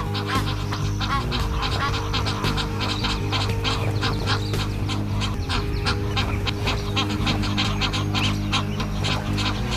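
Egyptian geese calling in rapid, repeated honks as rival birds squabble over territory, over a music bed of sustained low chords.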